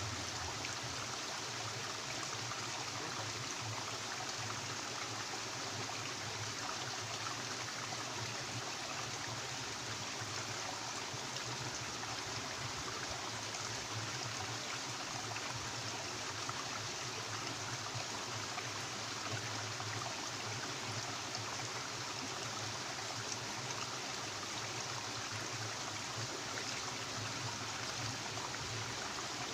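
Steady rushing of flowing stream water, an even wash of sound with no break.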